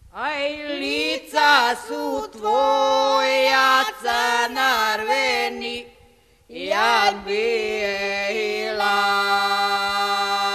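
A woman's voice singing unaccompanied: a slow, ornamented melody that slides up into each phrase, breaks off about six seconds in, then rises again into a long held note near the end.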